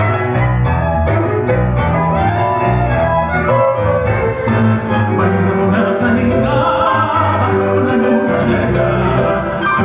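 Live tango orchestra playing a milonga: violin, double bass, bandoneon and piano, with a steady walking bass beneath sustained string and bandoneon melody.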